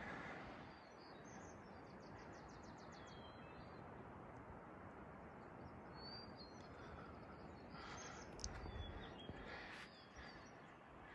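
Faint steady rush of a mountain stream with small birds calling over it: a fast trill of repeated notes about two seconds in and short chirps later. A few soft thumps near the end.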